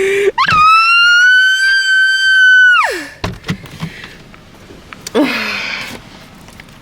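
A woman's long, high-pitched scream of excitement, held steady for about two and a half seconds before it drops away, followed about five seconds in by a shorter, lower cry.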